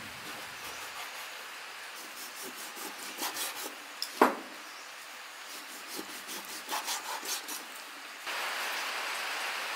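Kitchen cleaver slicing raw pork belly on a wooden cutting board: runs of short scraping strokes through the meat, with one sharp knock of the blade on the board about four seconds in. A steady hiss comes up suddenly near the end.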